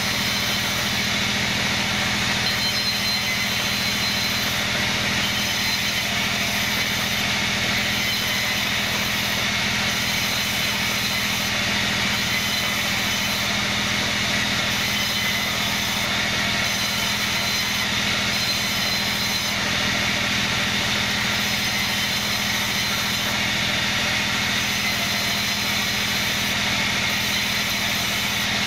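Sawmill band saw running steadily as kenanga wood is fed through it and ripped into strips: a constant machine drone with a low hum, unchanged throughout.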